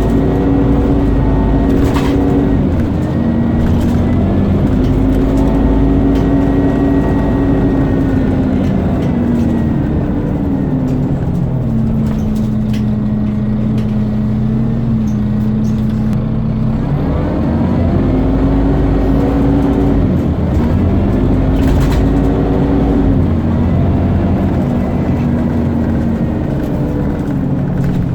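Scania bus engine pulling away and accelerating through its automatic gear changes, its pitch rising and then dropping at each shift, with a steadier spell in the middle. A high, vacuum-cleaner-like whine rides over the engine, and there are a few sharp clicks.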